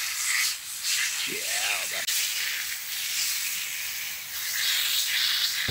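Water spraying from a hose spray wand onto a cleaned grouse held in gloved hands: a steady hiss.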